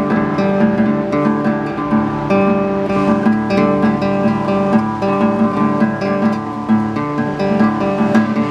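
Acoustic guitar music: chords plucked and strummed in a steady, continuous run of changing notes.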